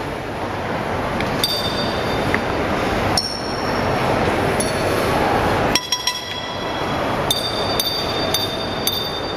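Metal serving trays being struck and clinked, a series of sharp metallic rings that hang on briefly, over a steady background noise.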